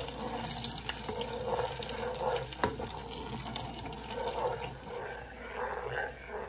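Kitchen tap running into a sink, with one short knock about two and a half seconds in.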